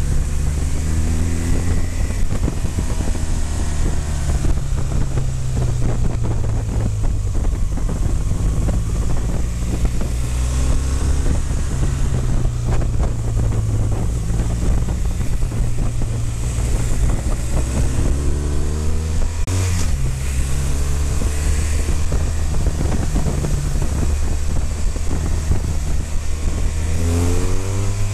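BMW motorcycle engine running on the move, its pitch rising several times as it accelerates, with wind noise on the microphone throughout. A single sharp knock about two-thirds of the way through.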